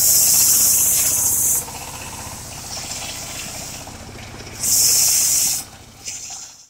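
Engine-driven circular sawmill blade cutting through a mahogany log, with the drive engine running steadily underneath. A loud high hiss rises twice while the blade is in the wood, for about a second and a half at the start and for about a second near the end. It stops abruptly.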